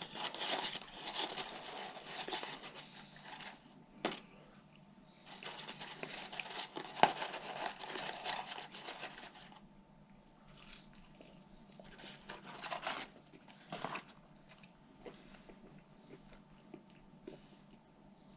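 Paper fast-food packaging being crinkled and torn open by hand, in two long stretches of rustling with a sharp snap about seven seconds in, then a few shorter rustles before it settles.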